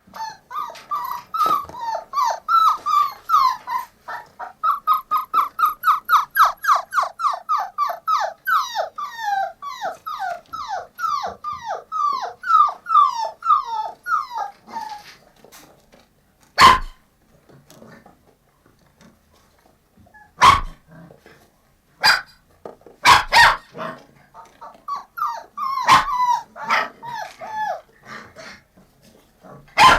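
Young puppies crying. For the first half there is a rapid run of short, high whines, about three a second, each falling in pitch. After that come a few single sharp yelps or barks, with a short burst of whining near the end.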